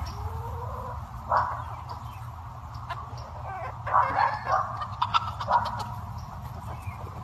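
A dog barking in short sharp barks: one about a second and a half in, then a quick run of barks between about four and five and a half seconds in, over a low steady rumble.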